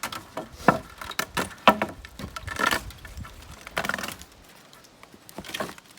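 Chicken wire being pulled off and handled: a run of sharp clicks and light metallic rattles, with a couple of short scraping rustles in the middle.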